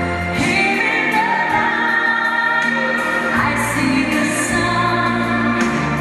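A song with a singer over sustained bass notes and a beat: the music for a figure skater's program.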